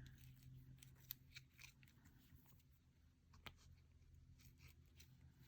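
Near silence: a few faint clicks and light taps from paper pieces being handled and pressed down by hand, over a low steady hum.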